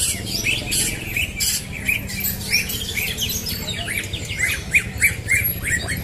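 Many caged songbirds chirping and twittering at once: a dense run of short, quick, overlapping notes, some sweeping up or down in pitch. A low steady hum runs underneath.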